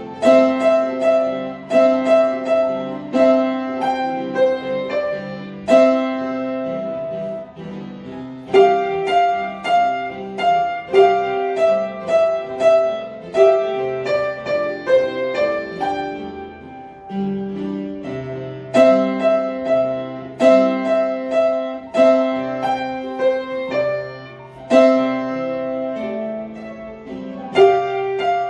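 A piano piece played note by note: a simple melody over lower chords in even phrases, each phrase ending on a longer held note.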